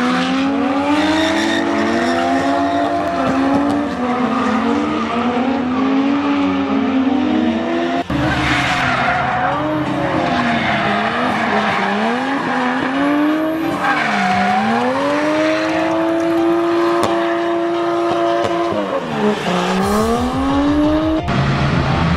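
Drift cars sliding with engines revving hard, the pitch climbing and dropping again and again as the throttle is worked, over a steady hiss of tyre squeal. It cuts sharply about eight seconds in, and near the end the revs hold high for a few seconds, dip and climb again.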